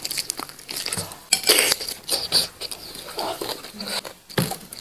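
Close-up eating sounds of a person gnawing and chewing goat-head meat off the bone by hand: irregular wet smacks and small clicks.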